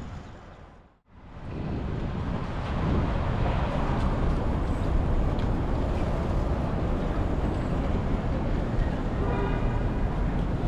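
Busy city street ambience: steady traffic noise with a deep low rumble. It drops to near silence briefly about a second in, where the recording cuts, and a brief pitched sound stands out near the end.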